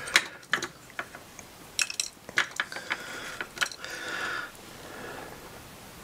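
A scatter of light clicks and taps as a wooden toothpick and small bits of polymer clay are handled and set down on a hard work board, with faint rustling of the hands.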